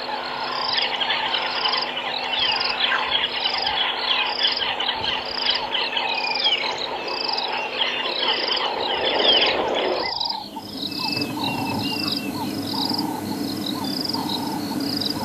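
Daytime bush chorus: many birds chirping and calling over insects pulsing steadily at about two pulses a second. About ten seconds in, the birdsong cuts off suddenly and a lower, steady noise takes over beneath the continuing insect pulse.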